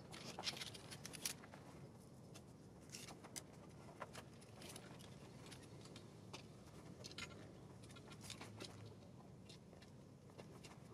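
Near silence, with faint scattered clicks and ticks.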